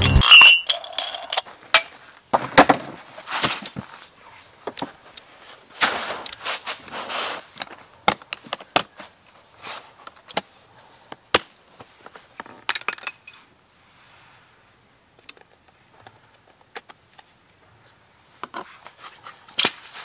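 Camera gear being handled: hard plastic equipment cases and metal tripod parts clicking, clinking and clattering, with short stretches of rustling in between and quiet gaps.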